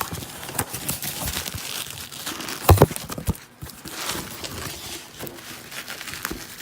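A parcel being opened by hand: cardboard, packing tape and wrapping rustling and crinkling in irregular handling noises, with a sharp double knock a little before the middle.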